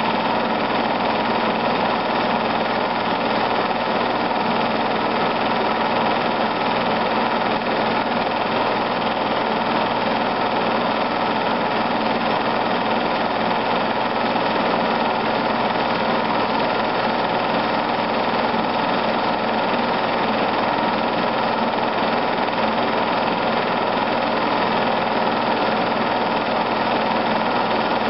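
Steady, unchanging mechanical running noise of a home-movie film projector, with a low hum beneath it.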